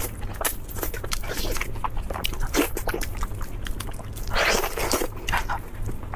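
Close-miked biting and chewing of crispy lamb chops: a quick run of sharp crunches, with one longer, louder crunch about four and a half seconds in.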